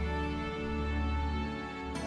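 Slow, gentle background music of sustained tones over a deep bass note, with a new chord coming in near the end.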